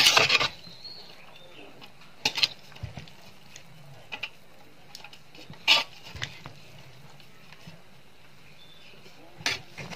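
Metal ladle scraping and knocking against the side of a metal cooking pot while cooked biryani rice is mixed, in short separate clatters: the loudest right at the start, then again about two, four, five and a half and nine and a half seconds in.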